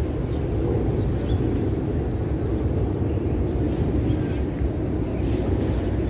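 Steady low outdoor rumble, with a few faint high chirps and a brief hiss about five seconds in.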